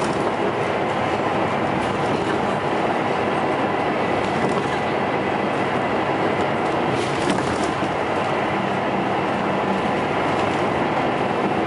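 Scania L94UB bus heard from inside the saloon while under way: a steady engine and road drone with rattling from the body and interior fittings, the thrash the bus is known for. A couple of sharp knocks come about seven seconds in.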